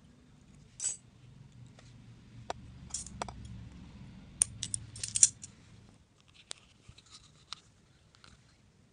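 Small sharp metallic clicks and snips from scissors and a wire whip-finish tool handled close up while the tying thread of a jighead is finished and cut. There is a quick run of louder snips about four and a half to five and a half seconds in, then a few lighter ticks.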